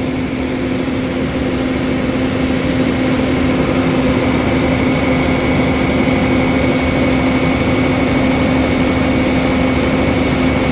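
DAF truck's diesel engine held at raised revs with its viscous-coupled cooling fan engaged, both running steadily under a fan-coupling test.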